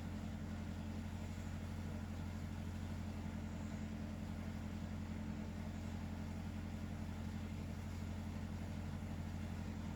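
A steady low hum that does not change, with no breathing rhythm in it.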